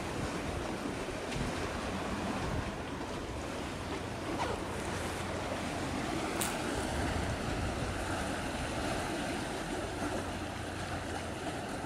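Steady rush of wind on the microphone with the wash of the sea, over a faint low hum.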